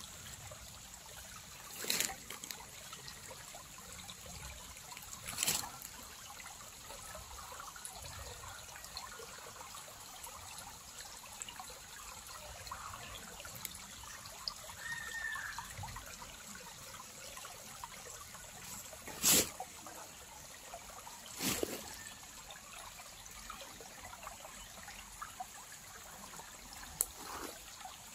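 Shallow forest stream trickling steadily over rocks. A few sharp clicks break through, the loudest about two-thirds of the way in.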